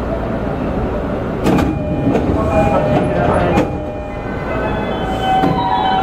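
E531 series electric train standing at a station platform with a steady rumble. A few sharp knocks come about one and a half and three and a half seconds in, and near the end a set of steady tones begins.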